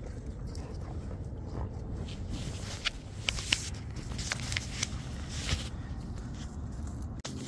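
Handling noise from a phone held against a shirt: low rumbling from the microphone rubbing on cloth, with a run of sharp clicks and scrapes in the middle as the phone is moved.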